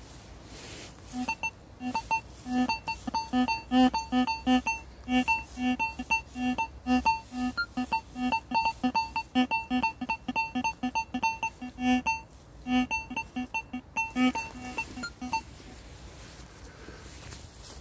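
Metal detector sounding rapid, irregular beeps in a low tone and higher tones as its search coil is swept over the ground. The beeps stop about two seconds before the end.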